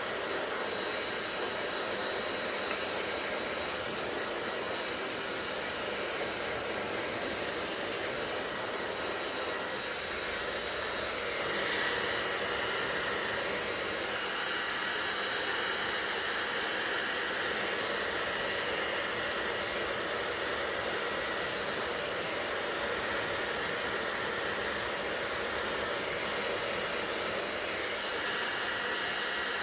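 Hair dryer running steadily: a continuous whoosh of fan and airflow with a faint high whine, the sound growing slightly brighter about twelve seconds in.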